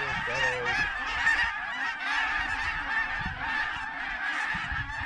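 A dense, unbroken chorus of high honks and cackles from a huge flock of cackling and Canada geese calling as they fly in. A few lower, louder honks stand out in the first second.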